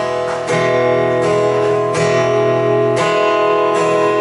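Acoustic guitar strumming chords, with a new strum about every second and the chords ringing between them.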